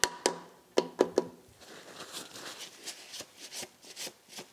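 Rubber mallet tapping a new main bearing shell into its seat in a Citroën U23 cast-iron engine block: a few sharp taps in the first second or so. After that comes the faint rubbing of a cloth wiping the block.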